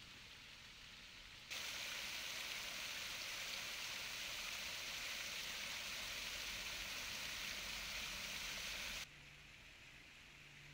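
Rock waterfall fountain: water pouring and splashing steadily into its stone basin, starting abruptly about a second and a half in and cutting off sharply about nine seconds in. A faint steady hiss lies either side.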